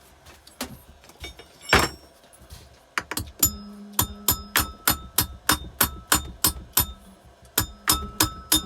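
Rapid, repeated hammer blows on a Keeway TX125 engine's cylinder head to break it free from its gasket, each strike ringing metallic. One heavy blow comes early, then steady tapping at about four strikes a second from about three seconds in.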